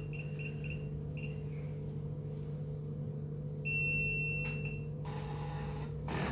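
Card payment terminal beeping: a quick run of short key beeps, then one long beep about a second long, followed by a brief whirr near the end, over a steady low hum.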